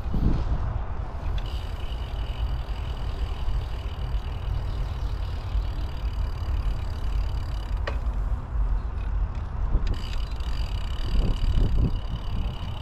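Bicycle riding: wind rumble on the microphone and rolling noise, with a faint steady high whine that drops out twice and a single sharp click about eight seconds in.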